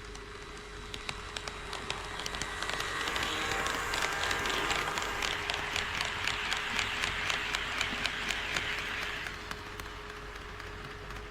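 HO-scale model train running past on KATO Unitrack: the rolling and motor noise swells, a quick regular clicking of the wheels over the rail joints rides on top, and it falls away about nine seconds in.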